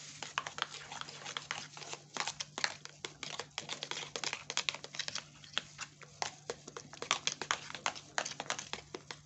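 Metal spoon stirring thick lotion in a plastic bowl: a fast, irregular run of wet clicks and scrapes, several a second.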